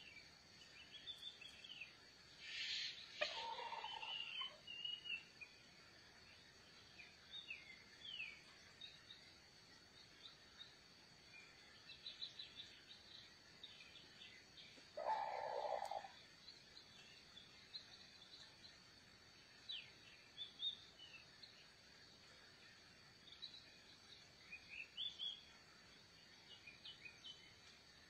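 Small birds chirping in short, scattered high calls, with two louder, lower bird calls, one about three seconds in and one about fifteen seconds in.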